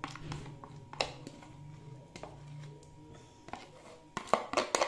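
A metal spoon scraping and knocking against a plastic jug as cream is emptied into an aluminium pot: scattered light knocks about once a second, then a quick run of louder knocks near the end, over a faint steady low hum.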